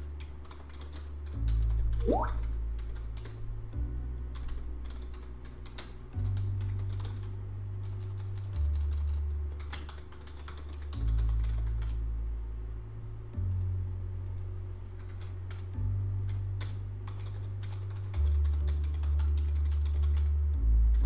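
Typing on a computer keyboard, irregular clicks, over background music whose low bass notes change every couple of seconds.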